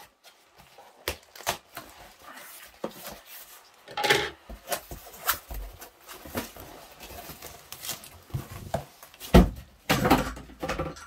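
Cardboard mailer box being opened and handled: flaps and packing rustling and scraping, with scattered knocks. Near the end there is a heavier thump, the loudest sound, as the shrink-wrapped vinyl record comes out of the box.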